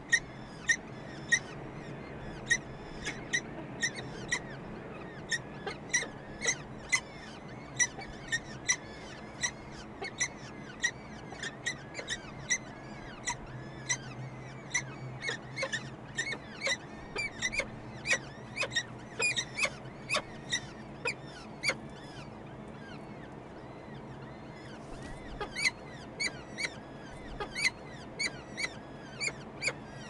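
Peregrine falcon chicks giving short, high begging peeps over and over, about two a second, while they are fed. The calls thin out for a few seconds past the twenty-second mark. A low steady hum runs underneath.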